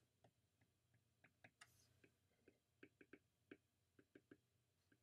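Faint, irregular clicks and taps of a stylus tip on a tablet's glass screen during handwriting, about fifteen over a few seconds, over a soft low hum.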